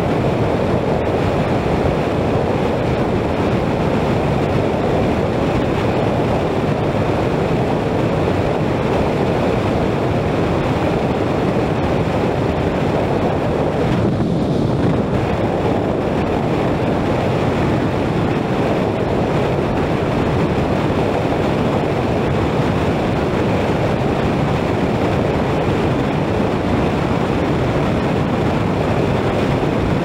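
Steady rush of wind buffeting the microphone of a scooter riding at highway speed, blended with road noise.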